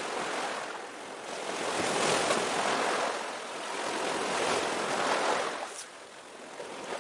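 Small sea waves washing in, a steady hiss that swells twice, about two seconds in and again around five seconds, then eases off.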